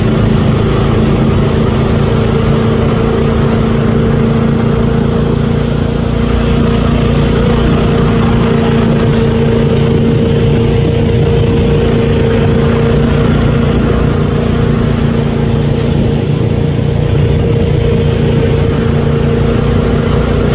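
Tow boat's engine running steadily at towing speed, an even drone that holds its pitch, with the hiss of the boat's wake and spray underneath.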